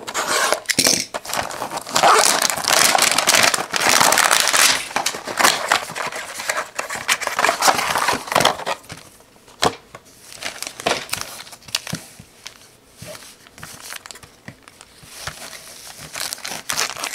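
Plastic wrapping crinkling and tearing as a trading-card repack box is opened by hand. It is densest in the first half, then gives way to sparser clicks and rustles of handling, with more crinkling near the end.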